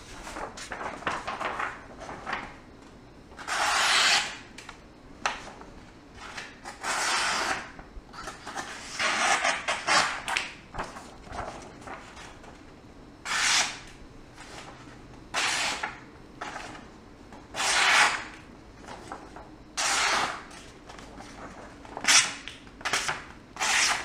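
Folding knife blade slicing through a sheet of paper in about a dozen separate strokes, each a short papery rasp, some quick and some drawn out.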